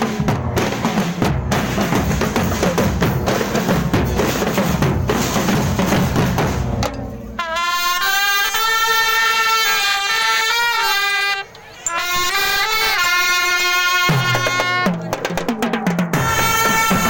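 Amplified live band music. Busy drumming with snare and bass drum gives way about seven seconds in to a held, bending melody line over bass, and the drums come back near the end.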